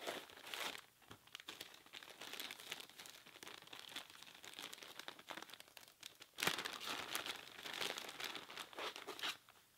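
Clear plastic packaging crinkling as insoles are handled and slid out of their sleeve. It grows louder about six and a half seconds in and stops shortly before the end.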